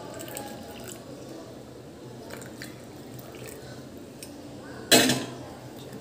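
Hot water trickling from a jug into a glass of squeezed lemon, the thin stream tapering to drips. About five seconds in, one short loud clatter.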